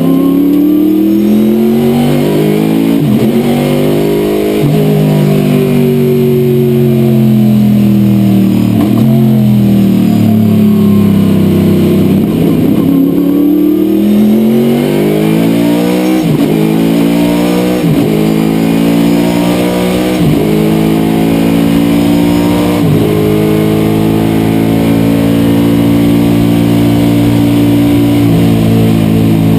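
Corvette C6 sports sedan race car's V8 engine heard from inside the cockpit under hard acceleration, pitch climbing and dropping sharply at each upshift. Around the middle the pitch falls away in a long sweep as it slows for a bend and then climbs again, followed by a quick run of upshifts about every two seconds.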